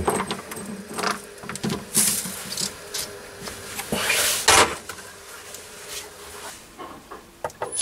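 Metal clicks, knocks and a few short scrapes as a steel bar is clamped in a three-jaw lathe chuck with a chuck key.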